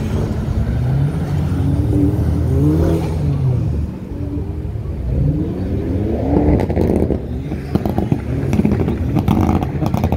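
Car engines accelerating hard, twice climbing in pitch as they rev up. Near the end comes a rapid run of sharp pops and crackles.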